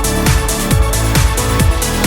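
Electronic dance music with a steady four-on-the-floor kick drum, about two beats a second, and sustained synth tones.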